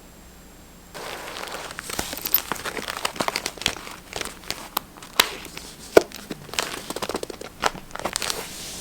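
Paper crinkling and rustling as journaling materials are handled, with many sharp little clicks and crackles. It starts about a second in and fades away near the end.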